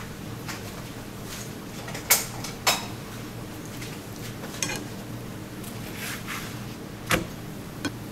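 A few sharp clicks and knocks of kitchen utensils and cookware being handled, about five in all, the loudest two a little over 2 seconds in, over a steady low hum.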